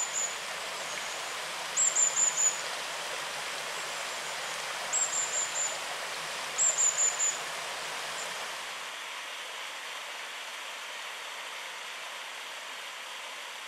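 Small stream running with a steady rush. A bird calls four times in the first eight seconds, each call a short run of very high, thin, falling notes. The water sound thins out about nine seconds in.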